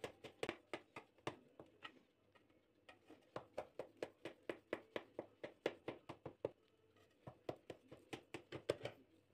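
Large knife cutting a soft sponge cake in an aluminium cake pan: runs of quick faint clicks, about three or four a second, as the blade saws and taps down through the cake to the pan. The clicking breaks off briefly about two seconds in and again near seven seconds.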